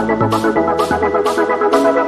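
Background electronic music with a steady beat and a plucked melody.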